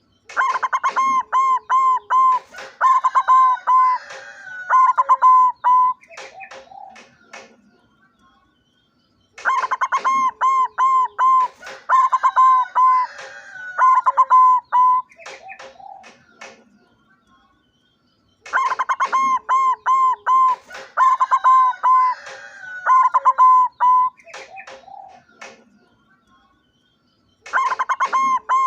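A white barred zebra dove (perkutut) cooing its song in long phrases of quick, evenly spaced notes. The phrase comes three times, each about six seconds long and about nine seconds apart, in nearly the same pattern each time.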